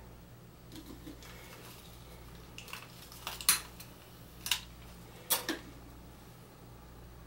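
Light handling taps, then three sharp clicks about a second apart from a long-reach utility lighter being triggered to light a candle, over a low steady room hum.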